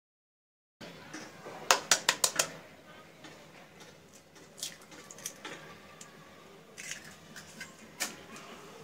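Sharp clicks and taps against a white ceramic bowl as a raw egg is cracked into it: first a quick run of about five clicks, then a few single taps spaced a second or so apart.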